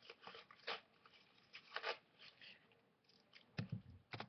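Faint crinkling and rustling of a Vinylmation blind-box package being handled and opened by hand, in short bursts, with a few soft thumps near the end.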